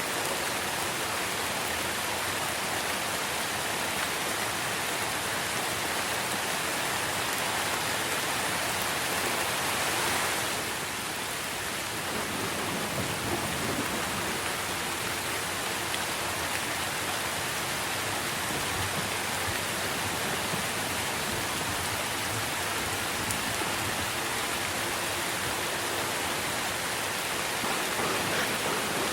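Steady rain falling on tree leaves, an even hiss of many raindrops; it swells slightly and then eases a little about ten seconds in.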